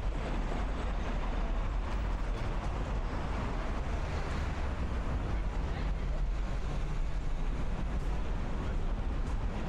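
City street ambience picked up while walking: a steady low rumble of traffic and wind on the microphone, with indistinct voices of passers-by.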